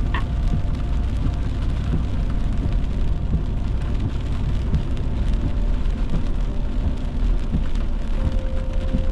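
Road and engine rumble from inside a moving pickup truck's cab on a wet road, with rain hitting the windshield: a steady low noise with faint scattered ticks.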